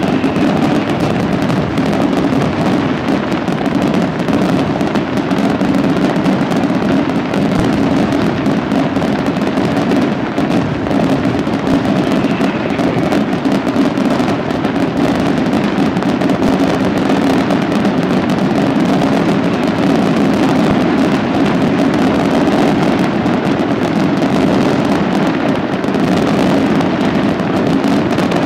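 Aerial fireworks display firing a dense, continuous barrage: rapid overlapping bangs and crackle with no pause, at an even, loud level.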